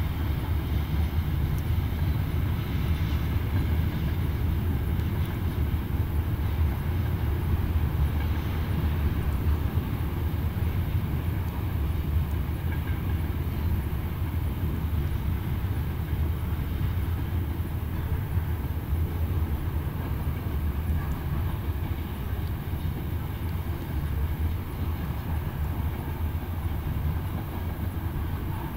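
BNSF grain train's covered hopper cars rolling past, a steady low rumble of wheels on rail that eases slightly toward the end.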